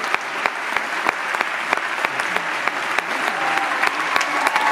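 Audience applauding steadily, a dense rain of many hand claps. Near the end, a few long high-pitched calls sound over the applause.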